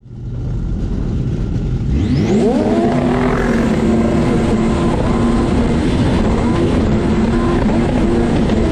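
Racing jet ski engine revving up sharply about two seconds in, then holding steady at high revs under full acceleration.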